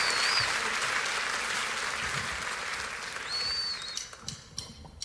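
Audience applause fading out, with two short high whistles over it; about four seconds in it thins to a few scattered separate claps.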